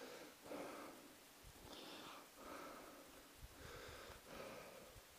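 Faint breathing and soft footsteps of a person walking through snow-covered brush.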